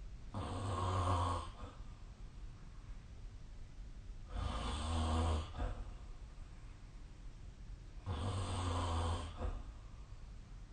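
A sleeping person snoring: three snores, each about a second long, coming at an even pace about four seconds apart.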